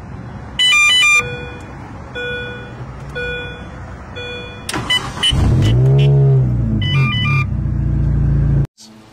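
Mini Cooper start-up with the custom John Cooper Works chime. A short multi-note chime plays, then a soft beep repeats a little more than once a second. After some clicks and another chime, the engine cranks, catches with a rev flare that rises and falls, and idles until the sound cuts off abruptly near the end.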